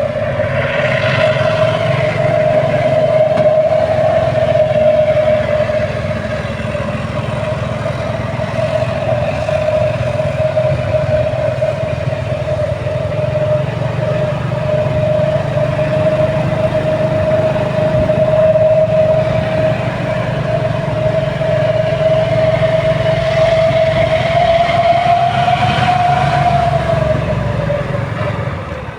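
Heavy diesel machinery running steadily, a low engine rumble under a constant high whine that rises slightly near the end and settles again.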